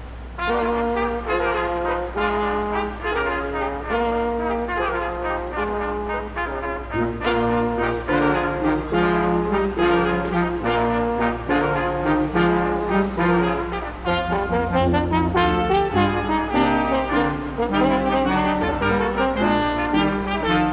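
Brass ensemble playing Christmas music, several parts sounding together in held notes. The music starts about half a second in.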